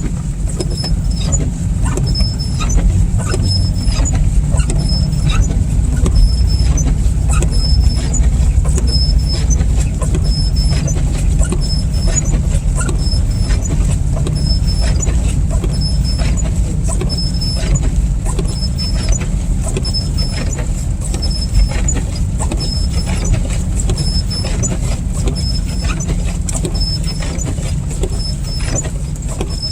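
Inside a car driving through slush: a steady low rumble of engine and tyres, with many small ticks and clicks of slush and snow hitting the car. Windshield wipers running fast give a short high squeak about every second and a half to two seconds.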